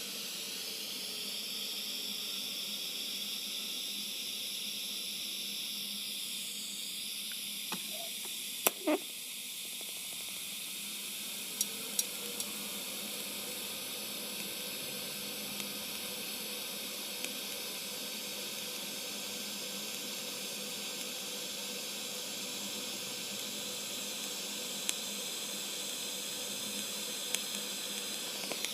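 TIG welding arc hissing steadily, with a few sharp clicks.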